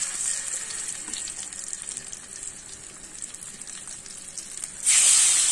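A masala-marinated chicken quarter sizzling in a little oil on a hot flat griddle pan over a wood fire: a steady frying hiss with small crackles. Near the end the sizzle suddenly becomes much louder and stays loud.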